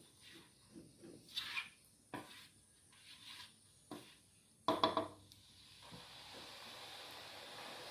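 Kitchen utensils knocking and clattering against pots and pans, a few separate strikes with the loudest cluster about five seconds in. From about six seconds a steady hiss starts and slowly grows louder.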